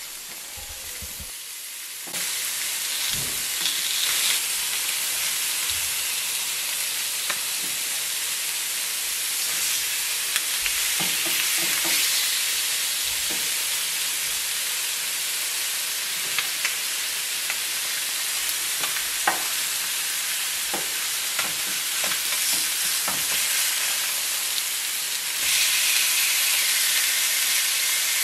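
Skewered shrimp and a tilapia fillet sizzling on a greased griddle pan, turned and cooking on their second side. The steady hiss grows louder about two seconds in and again near the end, with a few light clicks.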